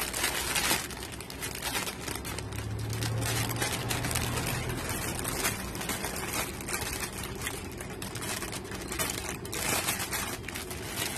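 Plastic packaging crinkling and rustling as small plastic toys are handled and pulled out, with many scattered light clicks.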